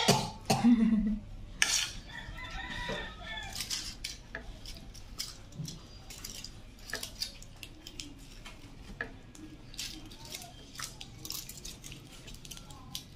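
Spoon and fork clinking and scraping on ceramic plates as rice is served, with short clicks all through. A drawn-out call sounds about two seconds in.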